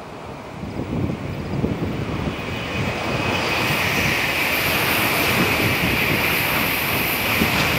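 Tokaido Shinkansen high-speed train approaching and passing at speed: a rushing noise that builds over the first few seconds, joined by a high hiss from about three and a half seconds in as the train runs by below.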